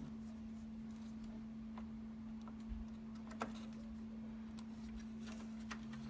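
A handful of faint, scattered plastic clicks and taps as DDR4 RAM sticks are handled and pushed into the motherboard's DIMM slots and latches, over a steady low hum.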